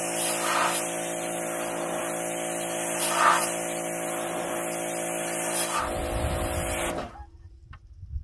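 Pressure washer spraying a bus roof: a steady hiss of water over the even hum of the machine, with two brief surges as the jet hits the surface. It stops abruptly about seven seconds in.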